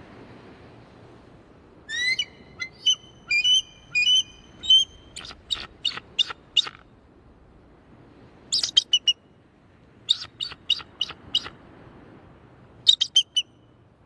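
Bald eagle calling: four bouts of high, chattering piping notes. The first bout starts about two seconds in and is the longest; shorter bouts follow, the last near the end.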